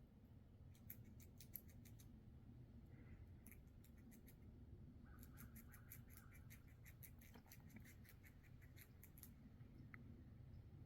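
Squirrel gnawing at a black walnut's very thick shell: faint, quick runs of sharp scraping clicks from its teeth, in spurts with short pauses, the longest and densest run in the second half.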